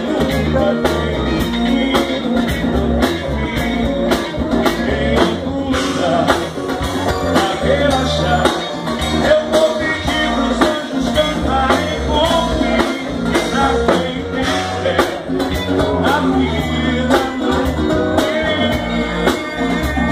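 Live band playing a song: a singer with acoustic guitar, electric guitar and drum kit, over a steady drum beat.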